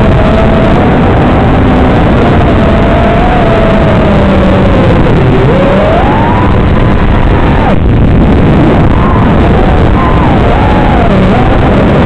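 FPV freestyle quadcopter's brushless motors and propellers running under a heavy steady hiss, their whine rising and falling in pitch with the throttle. The sound cuts out for an instant about eight seconds in.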